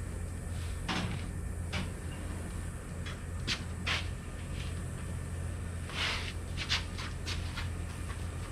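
Scattered knocks, bumps and clicks of heavy items being handled and shifted around, over a steady low hum.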